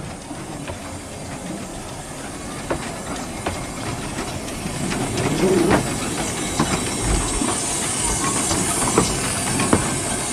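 Decauville 0-4-0 tank steam locomotive hissing steam, with scattered metallic clanks and clicks. The hiss grows stronger in the second half.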